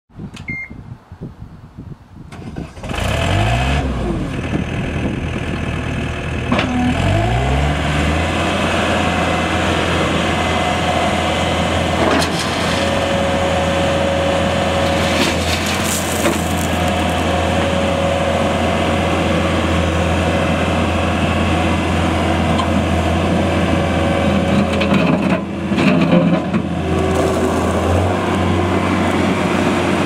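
John Deere 320 skid steer loader's diesel engine revving up about three seconds in and again a few seconds later, then running steadily under load. A steady whine comes in the middle as the loader arms raise the bucket and dump gravel, and the engine speeds up near the end.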